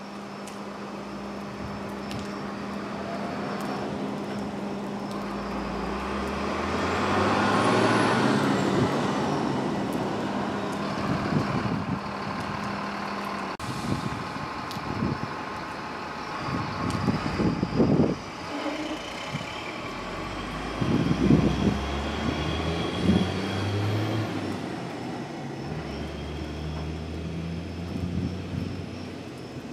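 Road traffic passing: a vehicle swells up and fades away about eight seconds in, then more vehicles go by, with engine notes rising as they pull away in the second half.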